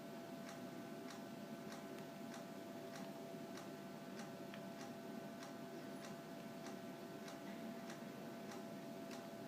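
Faint, steady ticking, about two ticks a second, over a faint steady tone.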